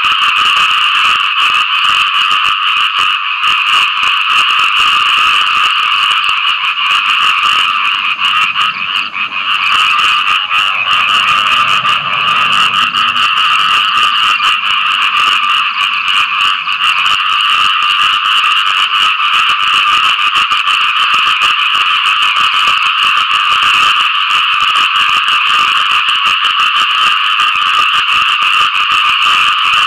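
Frogs calling for mates after rain: a loud, unbroken chorus of calls that blend into a steady high-pitched din, with no pause.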